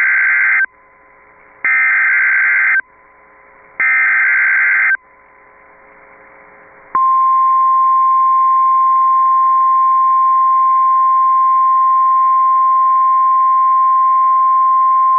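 EAS SAME header: three short, loud bursts of screeching digital data tones, separated by faint radio hiss. About seven seconds in, a steady single-pitch NOAA Weather Radio warning alarm tone begins and holds, signalling that a tornado warning is about to be read.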